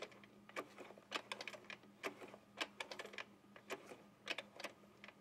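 Sewing machine's needle mechanism worked slowly, giving faint, irregular light clicks about two or three times a second over a faint steady hum.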